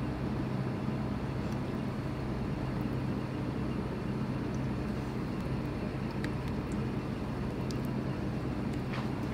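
Steady low machine hum of kitchen equipment, even throughout, with a few faint light ticks in the second half.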